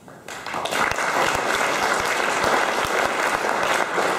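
Audience applauding: clapping starts about a third of a second in, swells within half a second and then carries on steadily.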